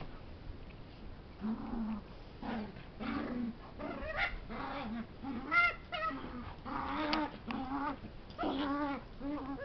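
Puppy making play noises while wrestling a bigger dog: about a dozen short whiny growls and yipping whines, some low, some gliding up high.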